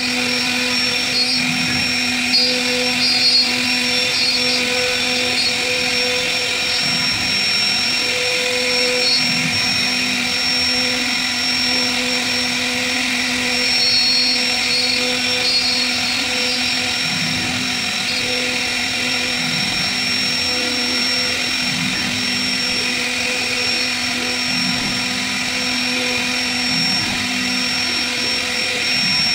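CNC router spindle running with a steady high whine as its fine engraving bit cuts grooves into a wooden door panel for a 2D carving.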